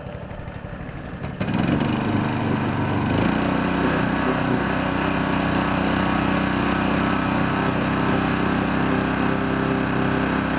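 Mud Buddy surface-drive mud motor on a canoe, running low, then opened up about a second and a half in and held at a steady high throttle as it drives the canoe through shallow, weedy water.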